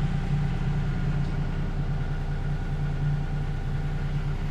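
Engine idling steadily, a low, even running sound with no change in speed.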